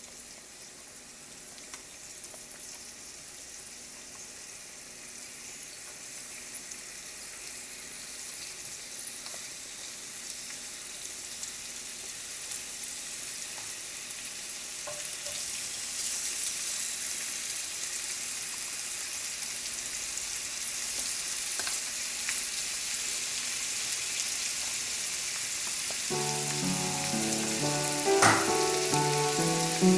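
Lamb chops frying in ghee in a griddle pan: a steady sizzle that slowly grows louder as the pan heats. A tune of sustained notes comes in over it near the end.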